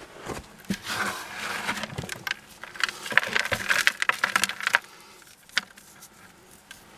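Rocks and dirt being dug out of a mineral vein: scraping and clattering of stones. The scraping is busy for about the first five seconds, then gives way to a few separate clicks.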